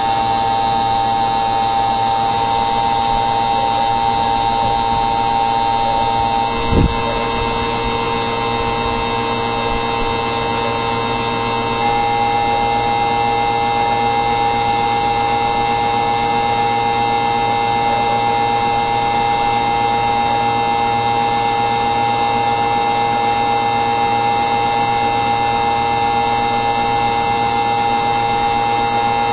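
Steady machine whine made of several held tones, shifting slightly in pitch mix about 2, 6 and 12 seconds in, with a single short thump about 7 seconds in.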